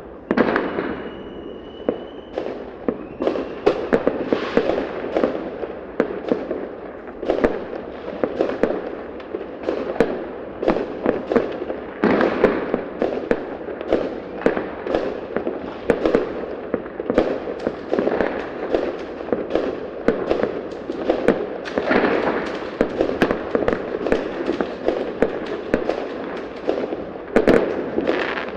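Fireworks going off in a dense, continuous barrage of sharp bangs and crackle, many reports overlapping each second. A thin whistle sounds briefly near the start.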